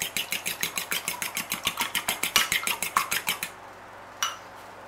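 A fork beating two raw eggs in a ceramic bowl, the tines clicking against the bowl in a fast, even rhythm of about seven or eight strokes a second. The beating stops about three and a half seconds in, and one light knock follows.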